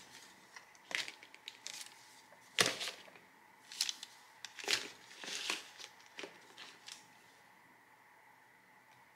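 Plastic Liquitex Basics acrylic paint tubes being handled and set down on a paper-covered table: a series of irregular clacks and rustles, the loudest about two and a half seconds in, growing sparse near the end.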